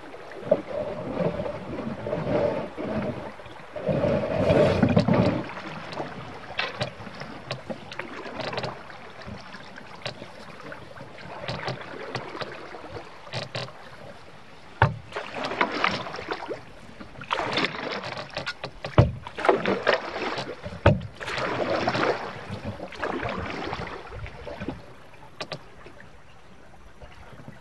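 Paddling a Wenonah canoe: paddle strokes swishing and splashing in the creek water, with a few sharp knocks along the way.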